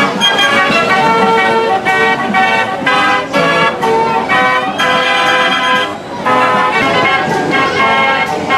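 Fairground organ of a set of carousel gallopers playing a brisk tune in rhythmic, horn-like chords, with a short break about six seconds in.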